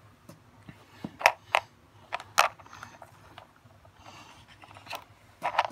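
Hard plastic toy pieces clacking as they are handled: a few separate sharp clicks, the loudest about a second and two and a half seconds in and again near the end.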